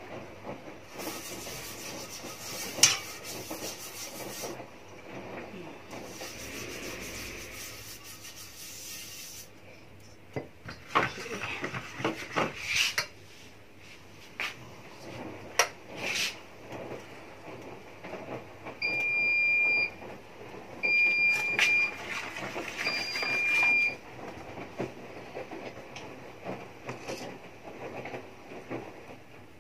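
Cooking handling sounds while oiling a frying pan: a wooden spoon tapping and scraping in a small oil bowl and on the pan, with scattered clicks and clatter over a steady hiss. Partway through, three electronic beeps, each about a second long, sound from a kitchen appliance.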